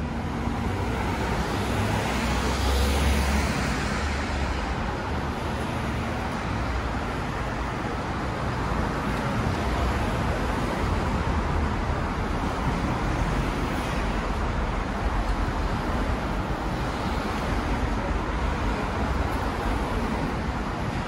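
City street traffic: cars and other vehicles passing steadily, with one louder vehicle going by about three seconds in.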